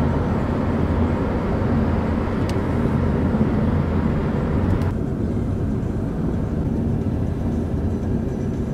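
Steady road and wind noise inside a moving car's cabin at motorway speed, mostly a low rumble with a hiss on top. The hiss thins out abruptly about five seconds in.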